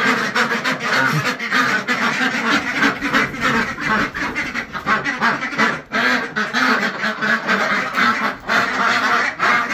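A flock of domestic ducks, white Pekins among them, quacking loudly and continuously, with many calls overlapping.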